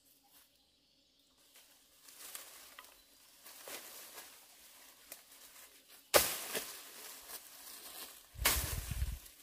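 Leafy branches and undergrowth rustling as they are pulled aside by hand, with a sharp strike of a bush knife about six seconds in and a loud burst of crashing foliage near the end.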